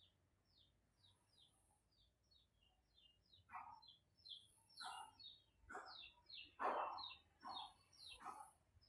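Faint bird chirping: quick, short, high chirps repeating several times a second. About three and a half seconds in, louder calls join them, coming roughly once a second.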